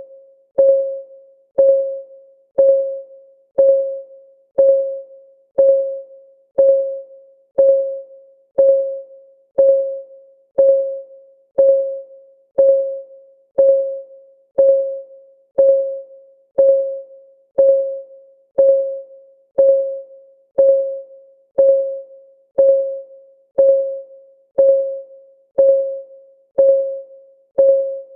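Clock-ticking sound effect for a countdown timer: a short, sharp tick with a single tone, repeated steadily about once a second.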